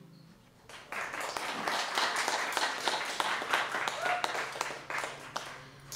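Audience applause at the end of a song: the last guitar chord fades, then a crowd starts clapping about a second in, with a voice or two calling out, and dies down near the end.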